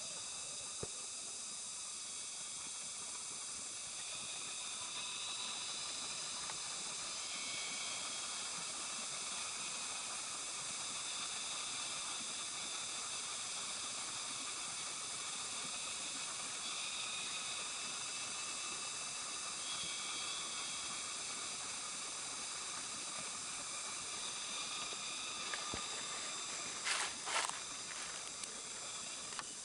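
Steady high-pitched insect chorus shrilling without a break, its pitch bands shifting slightly now and then. Near the end come a few footsteps crunching on dry leaf litter.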